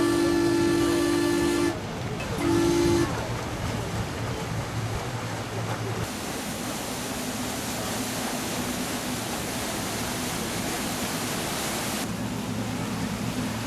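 A boat's horn sounding two notes at once in a long blast that stops under two seconds in, then one short blast. After that comes a steady low engine hum over an even rushing noise.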